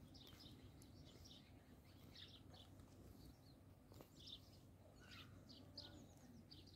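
Faint, frequent chirping of small birds, with one light click about four seconds in.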